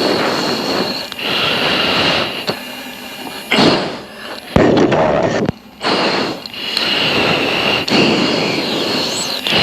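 F-16 pilot's heavy, rapid breathing through the oxygen-mask microphone, one forceful breath about every second, typical of straining against G during a dogfight turn. A sharp click about halfway through.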